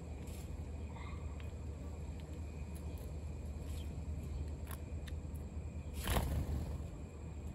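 House sparrows pecking at food in an aluminium pie tin, with a few light clicks and a faint chirp about a second in. About six seconds in comes a sudden, loud whir of wings as one sparrow flaps up, over a steady low rumble.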